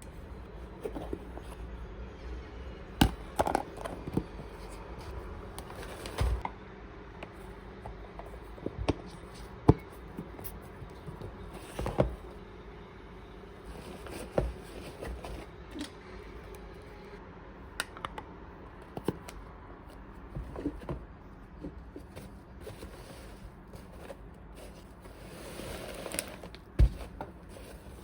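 Scattered light clicks, knocks and scrapes of a fork and tableware against a plate, irregular, roughly one every second or two.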